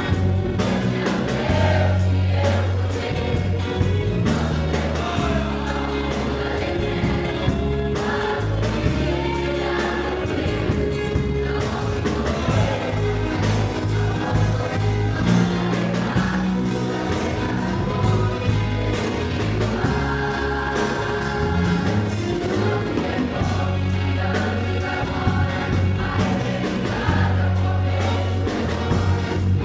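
Church choir singing a gospel song over instrumental accompaniment with a steady bass line.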